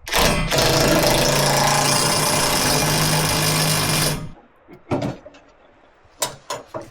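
Cordless impact driver hammering for about four seconds as it runs a nut down onto a U-bolt, then stopping. A few sharp metal clinks follow.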